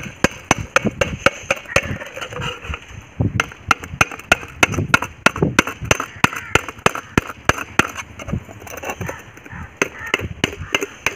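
Hammer striking the back of a long knife blade, driving it through the top of a tin-plate flour can that rests on a stone: a run of sharp blows, about three a second.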